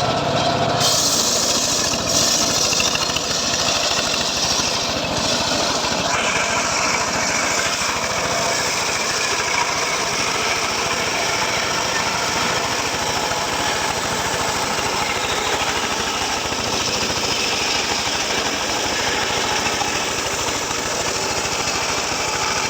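Engine-driven saw running under load, cutting through teak wood: a steady, loud mechanical noise with a rapid engine pulse, turning brighter and harsher as the blade bites into the wood under a second in.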